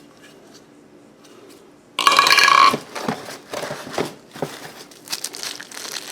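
Packaging being handled as vacuum accessories are unpacked. About two seconds in comes a short, loud, squeaky screech, then plastic packaging rustling and crinkling with light clicks of plastic parts.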